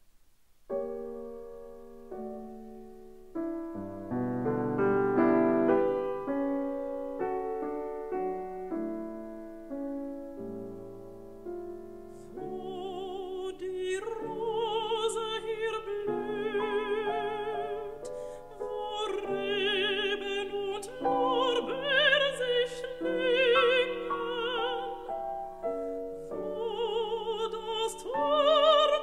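Solo piano plays a slow introduction, and about twelve seconds in a mezzo-soprano enters singing a German art song with vibrato over the piano accompaniment.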